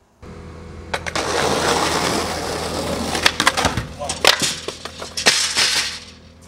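Skateboard wheels rolling on rough pavement, broken by several sharp clacks and knocks of the board hitting the ground and the stair rail during a trick attempt. A steady low hum runs underneath.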